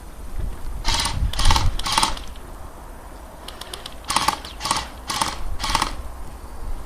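Airsoft electric gun firing short bursts of rapid clicking shots: three bursts about half a second apart, then after a pause four more.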